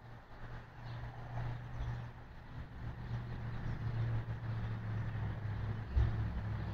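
Thunder rumbling low and building in loudness, with a louder low jolt near the end.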